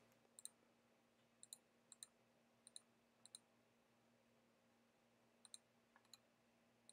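Faint clicks of a computer mouse button, each a quick press-and-release pair, about seven in all with a pause of a couple of seconds in the middle.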